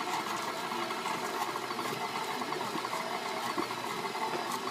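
Electric mixer running steadily on its lowest speed, its motor whirring as it shreds pork in the bowl.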